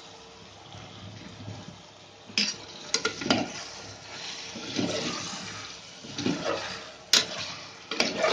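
Metal spoon stirring and scraping raw chicken pieces through onion and ginger-garlic masala in an aluminium pressure cooker on high flame, with several sharp clinks of the spoon against the pot's side over a steady wet sizzle.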